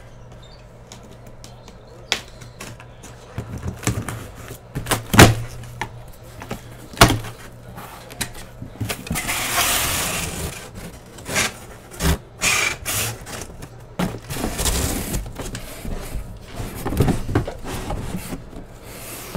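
A large cardboard shipping case being opened and handled: knocks and thumps of cardboard boxes, with the flaps scraping and sliding against each other. The loudest knock comes about five seconds in, and there are stretches of scraping about nine to eleven seconds in and again around fifteen seconds.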